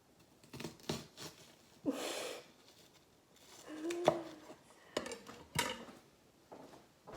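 Kitchenware handling: a handful of irregular knocks and clatters of utensils and dishes, with a short rustle about two seconds in.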